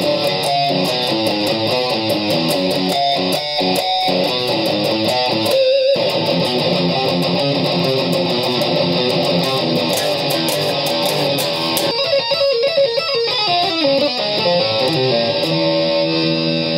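Electric guitar played in fast picked riffs, with a few brief stops along the way.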